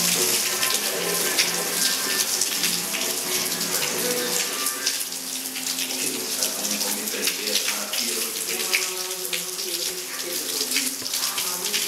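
Heavy rain pouring down, a dense steady hiss full of small splashes and drops.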